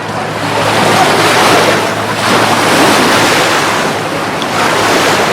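Atlantic Ocean surf washing onto a sandy beach, rising and falling in swells every second or two.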